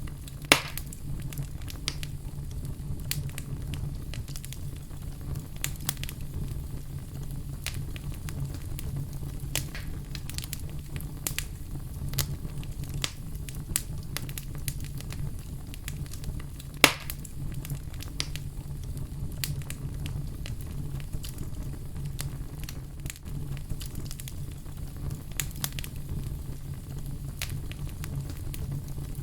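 Fireplace fire crackling, with constant small snaps over a steady low rumble and two loud pops, one about half a second in and one about seventeen seconds in.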